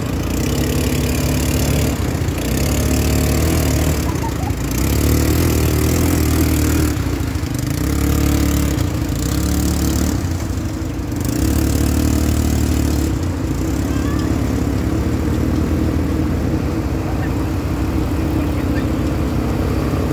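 ATV engines running and revving as the quad bikes wade through a shallow river, with water splashing around the wheels. The engine pitch rises and falls repeatedly.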